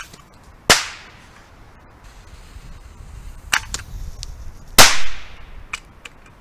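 Explosive crossbow darts going off: a sharp bang under a second in, and a louder one about four seconds later with a longer tail. A few lighter snaps and clicks fall between and after them.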